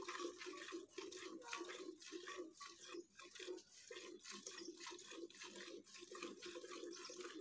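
Cow being milked by hand into a steel bucket: streams of milk squirting into the pail in a steady rhythm of short squirts.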